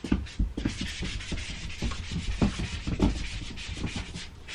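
Rubbing and scraping with many irregular soft thumps, as a person shuffles on hands and knees and brushes against a mattress and wall.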